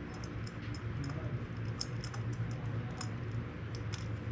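Scattered light clicks and ticks of small hard objects being handled and moved about, over a steady low hum.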